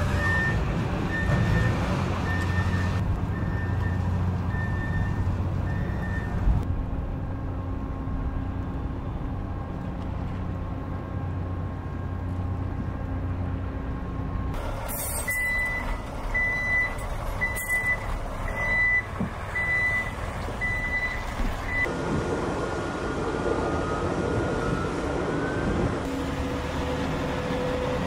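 Heavy-vehicle reversing alarm beeping in an even rhythm, a little faster than once a second, over the low rumble of diesel engines. The beeping stops about six seconds in, and a second, slightly higher alarm beeps for about seven seconds in the middle.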